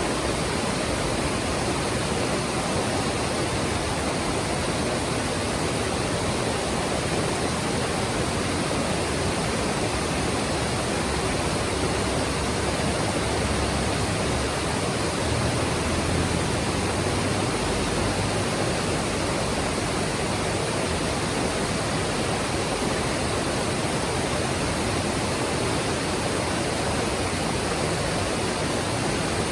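Mountain stream rushing over rocks: a steady, even wash of water noise with no breaks.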